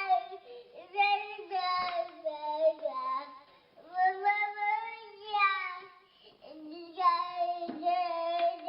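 Young child crying inconsolably in long, drawn-out, high-pitched wails, about three of them with short breaths between, the pitch sagging and rising within each wail.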